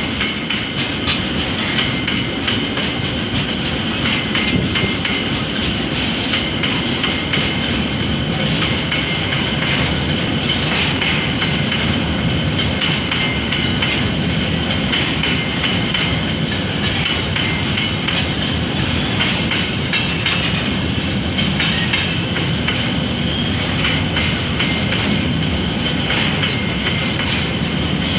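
Freight wagons rolling past at speed: a steady rumble of steel wheels on the rails with a running clickety-clack over the rail joints and a thin, steady, high wheel squeal on top.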